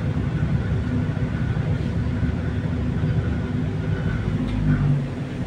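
Steady low rumble of an LRT Line 1 train running, heard from inside the passenger car: wheels on the rails and the car's running noise.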